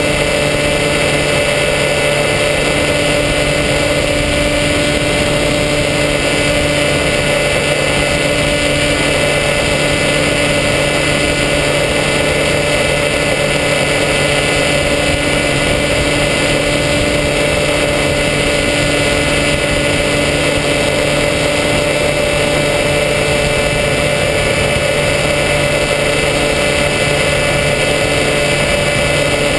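Electric motor and propeller of a foam RC plane running at steady throttle, heard from the onboard camera: a constant hum of several steady tones over a rush of air.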